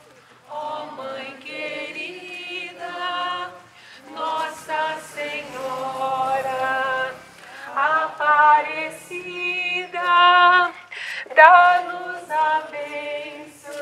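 A group of voices singing a hymn in held notes, phrase by phrase with short breaks between phrases.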